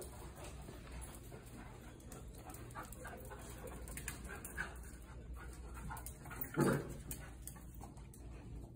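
Two puppies, an English Cocker Spaniel and an Australian Shepherd, playing together: quiet dog play noises, with one short, louder cry about two-thirds of the way in.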